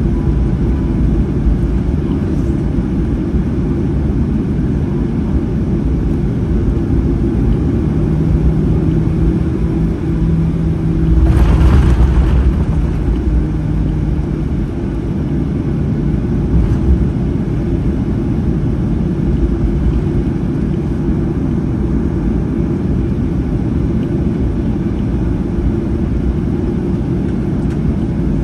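Cabin noise inside a Boeing 737-800 taxiing after landing: the steady low rumble of its CFM56 engines at idle and the airframe rolling. About eleven seconds in, a louder rush lasts a second or so.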